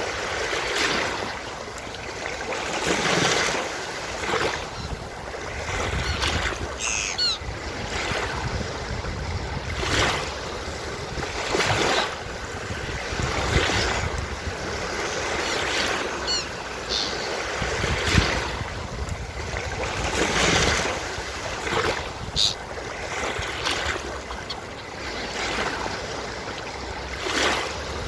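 Ocean waves washing onto a beach, the surf swelling and falling back every few seconds, with seagulls calling a few times.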